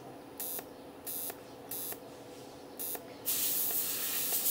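Jasic 200 A MOSFET inverter TIG welder at about 150 A: a few short bursts of high-frequency arc-start crackle, then a little over three seconds in the arc strikes and runs with a steady hiss.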